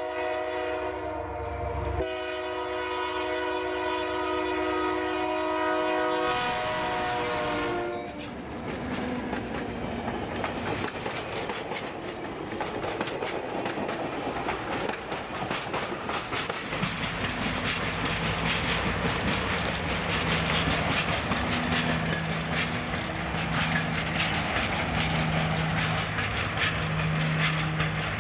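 Diesel locomotive air horn sounding a chord of several tones for about eight seconds, broken briefly about two seconds in. Then the passenger train rolls past with its wheels clicking over the rail joints, and a low engine drone comes and goes near the end.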